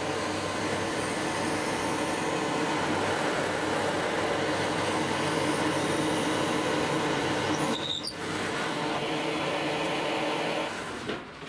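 Drill press running and boring holes into an oak board, with a dust-extraction vacuum drawing at the bit. The two make a steady machine noise with a brief break about eight seconds in, and the noise dies away near the end.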